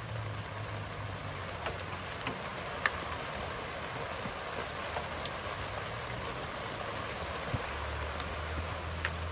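Steady hiss like rain or wind, with a few sharp clicks and knocks, the loudest about three seconds in, and a low hum that fades early and returns near the end.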